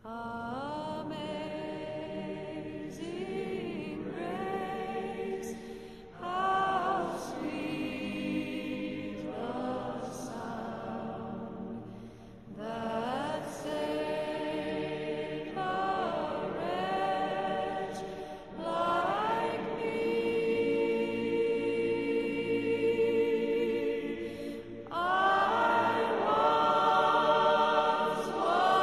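A choir singing slow, held phrases, with a new phrase beginning every few seconds and growing louder near the end.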